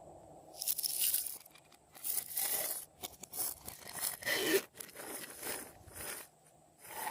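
Hands squishing and stretching slime: sticky tearing, squelching noises that come in about six separate pushes with short pauses between them.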